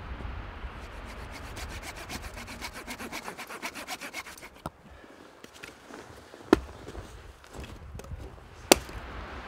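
Wood being cut with a hand saw: a fast, even rasping rhythm for a few seconds. Two sharp cracks follow, one about halfway through and one near the end.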